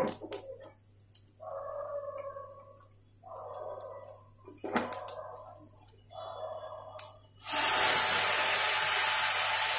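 Hot water poured into a hot kadhai of roasted vermicelli, starting suddenly about three-quarters of the way in as a loud, steady hiss and sizzle. Before it come a few clicks and short scrapes of metal utensils.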